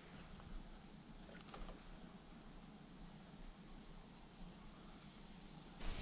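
Faint high-pitched chirp of a small wild animal, each note short and slightly falling, repeated about twice a second. A louder rustle starts right at the end.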